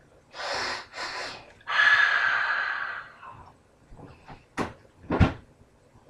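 A person's loud breaths: two short sharp puffs, then a longer breathy exhale. Two sharp knocks follow near the end.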